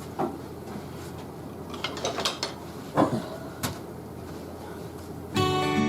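A few scattered knocks and scrapes, the loudest about three seconds in, over a steady low hum; acoustic guitar music starts near the end.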